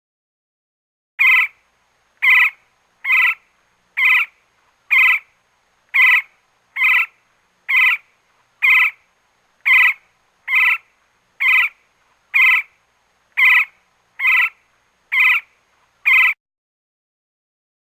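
Woodpecker calling: a series of about seventeen short, sharp chirps, each with the same pitch, repeated about once a second and starting about a second in.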